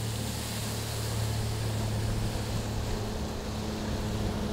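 Outboard motor on a fishing boat running at planing speed, a steady low engine drone under a rush of wind and water noise from the hull cutting through the lake.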